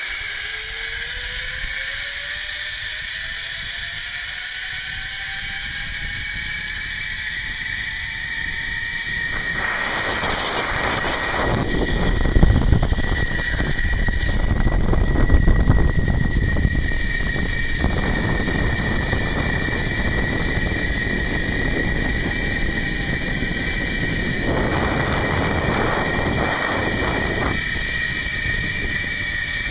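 Zipline trolley pulleys running along the steel cable: a whine that rises in pitch over the first several seconds as the rider gathers speed, over a steady high whine. From about ten seconds in, wind buffets the microphone with a heavy rumble, loudest a few seconds later, while the cable whine goes on.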